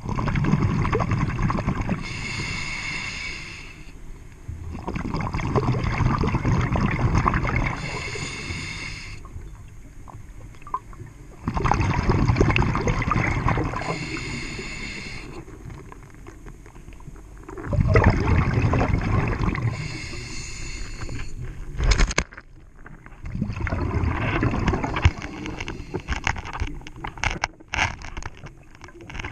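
A scuba diver breathing through a regulator underwater: about five slow breaths, roughly six seconds apart, each a long rush of exhaled bubbles, some ending in a hiss. A sharp knock about two-thirds of the way through and a few clicks near the end.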